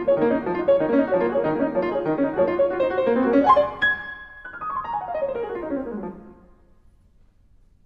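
Yamaha CFX concert grand piano playing a fast passage of quickly repeated notes, then a short upward run to a held high note about four seconds in. A falling run follows down into the bass and dies away near the end, recorded with a DPA 4006 microphone.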